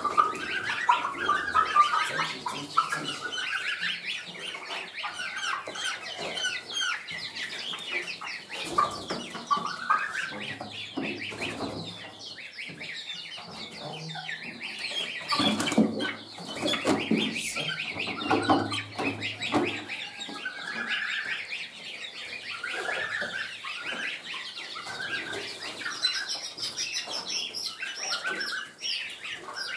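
Young Appenzeller Spitzhauben chickens calling continuously: many overlapping high peeps and squawks mixed with lower clucks, noisy while they are caught by hand and put into a carrier box.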